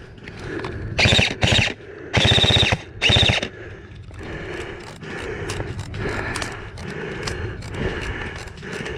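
Airsoft rifle firing four short full-auto bursts in quick succession in the first half, each a rapid rattle of shots.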